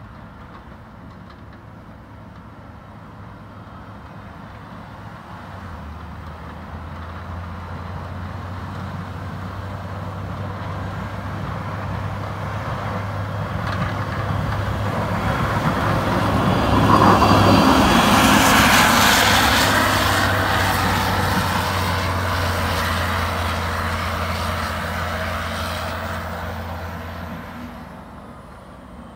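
Caterpillar 950M wheel loader's Cat C7.1 six-cylinder diesel engine running steadily as the machine approaches, passes close about halfway through, and pulls away. Its plow blade and wing scrape and push snow off the street, and this hiss is loudest as it goes by.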